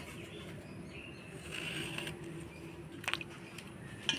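Eggplant being cut on a boti, the upright fixed kitchen blade: a couple of short crisp cuts about three seconds in, over a faint steady hum.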